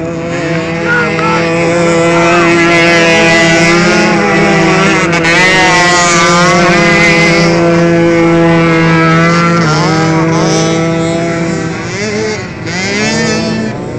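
Several motocross bikes' engines running hard around the track together, one holding a steady high note while others rev up and down as they pass. The sound eases briefly about twelve seconds in before picking up again.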